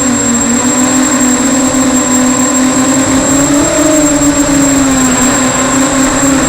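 Small electric multirotor racing drone's motors and propellers buzzing, the pitch wavering up and down as the throttle changes, with a steady high whine above it.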